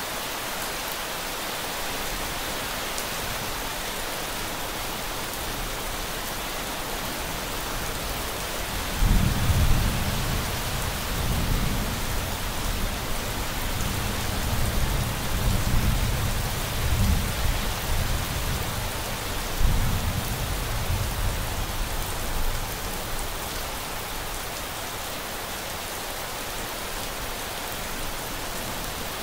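Steady rain falling. About nine seconds in, a long roll of thunder starts suddenly and rumbles low for around thirteen seconds in several swells before dying away, leaving the steady rain.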